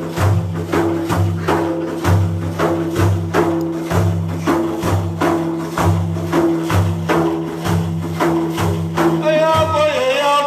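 Music for a madih praise song: a steady percussion beat with tambourine jingles over low held tones. A man's singing voice comes in near the end.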